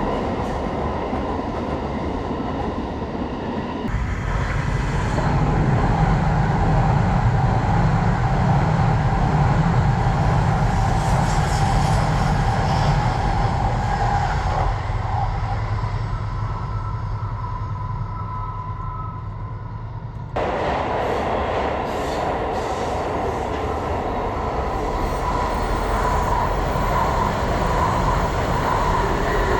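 Electric trains running past on the tracks below: a steady rumble and rail noise with a faint motor whine. The sound changes abruptly about four seconds in and again about twenty seconds in.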